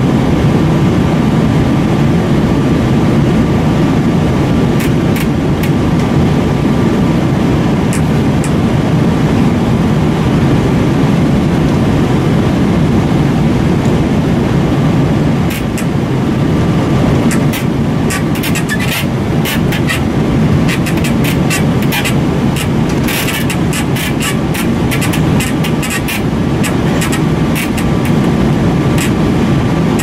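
Airliner cabin roar in flight, steady and loud, with creaking and clicking from somewhere in the cabin during mild turbulence: only a few creaks at first, then a rapid racket of them from about halfway on. The uploader takes it for something in the aircraft not sealed or bolted down properly.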